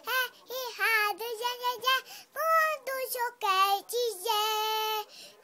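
Young child singing a Portuguese pop love song in a high voice: short sung phrases with brief breaks, then one long held note near the end.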